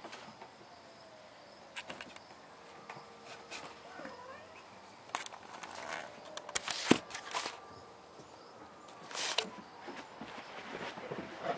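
Kittens scampering and pouncing on a carpeted floor: scattered soft scuffles and thumps, busiest in the middle, with the loudest thump about seven seconds in.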